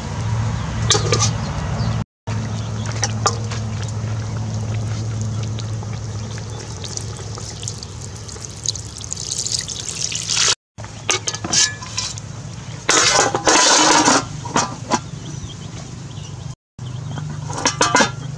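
Water poured into a large aluminium pot of pork leg and broth, with a metal spoon clinking and scraping against the pot, over a steady low hum. Near the end the aluminium lid clatters as it is set on.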